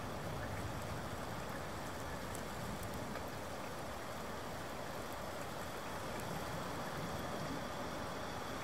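Steady rain, an even hiss with scattered faint ticks of drops.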